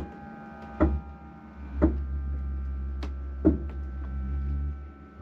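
Motorhome hydraulic leveling-jack pump running with a steady low hum. It starts about a second in and stops near the end, with sharp clicks about once a second while the jacks are being set to bring the coach level.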